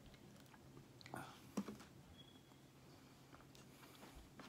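Near silence, with faint mouth sounds of eating or swallowing and one sharp click about a second and a half in.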